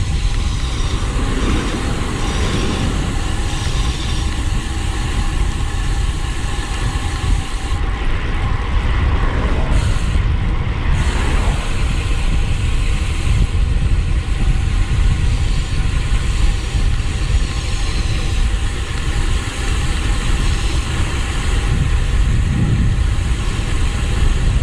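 Steady wind rumble on the camera microphone and tyre-on-road noise from a road bicycle ridden at speed.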